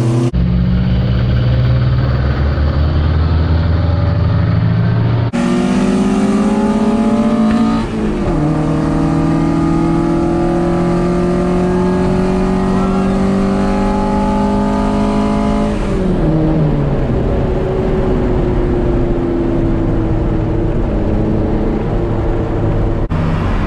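Acura Integra DC4's four-cylinder engine pulling hard through the gears. The engine note climbs steadily, drops sharply at each upshift about a third and about two thirds of the way through, then eases off, broken by a few abrupt edits.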